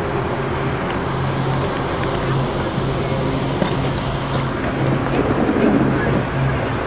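Diesel engine of an intercity motorcoach running at low speed as the bus pulls through, a steady low drone that grows a little louder about five seconds in.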